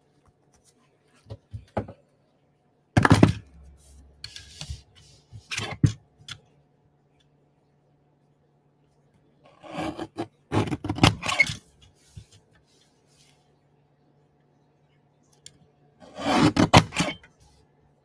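Paper trimmer cutting cardstock, with the card and tool being handled: several separate short scraping strokes, the loudest cluster about ten to eleven seconds in and another near the end.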